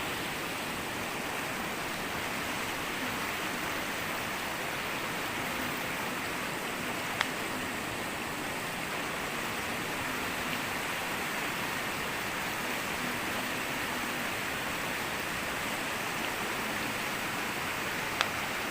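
Steady rain falling, an even hiss with two sharp taps, one about seven seconds in and one near the end.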